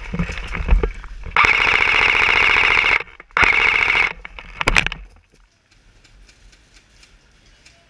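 M4-style airsoft rifle firing on full auto: two rapid, even bursts of shots with a steady high whine, the first about a second and a half long and the second shorter. Rustling and handling knocks come before the bursts, and a couple of clicks follow.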